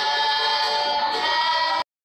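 Music with choral singing holding long sustained notes, cut off abruptly near the end.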